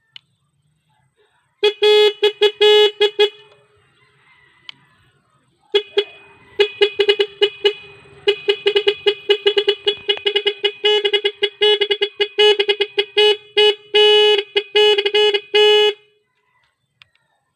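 NHAY Pro bicycle horn sounding one of its preset patterns on a single horn unit: a short run of quick beeps at one steady pitch, then after a pause of about two seconds a longer run of rapid beeps lasting about ten seconds before cutting off.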